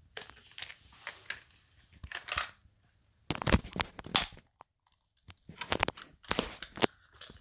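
Small hard plastic toys being handled: a pink plastic toy case turned over and worked at, giving irregular clusters of clicks, clatters and light rustling with short pauses between them.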